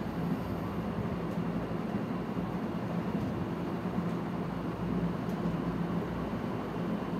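Steady background noise with a low hum, even throughout, with no distinct events.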